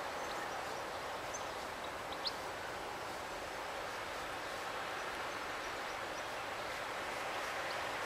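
Steady outdoor background noise, an even hiss, with a few faint high chirps and one sharper, brief high chirp a little over two seconds in.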